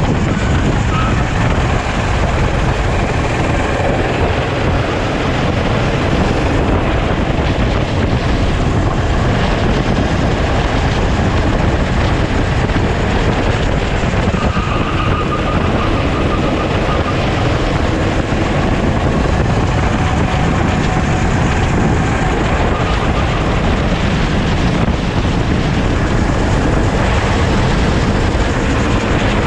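Sodi kart's engine running at racing speed, heard from an onboard camera and mixed with heavy wind noise on the microphone. The sound is loud and steady, with a faint engine note shifting in pitch now and then.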